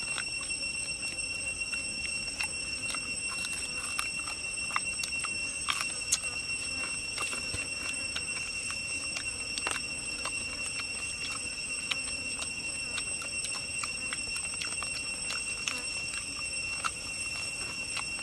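A steady high-pitched drone of forest insects, several unchanging tones, with scattered small clicks and smacks of people chewing and eating.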